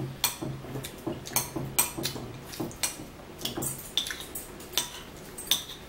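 Close-up eating sounds: a metal fork clinking on a dish and wet chewing and lip smacks of fresh fruit, a string of short sharp clicks several times a second.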